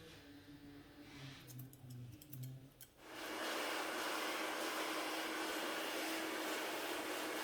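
A hair dryer switched on about three seconds in, then blowing steadily with an even rush of air and a motor hum, after a few faint clicks.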